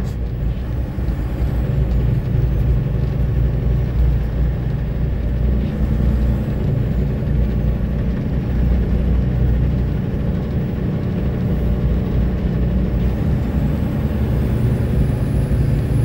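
Truck engine running steadily, a constant low rumble with no change in pitch.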